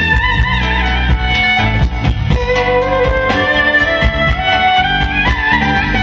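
Clarinet playing an ornamented, sliding Turkish-style melody, backed live by a band with bass and a steady drum beat.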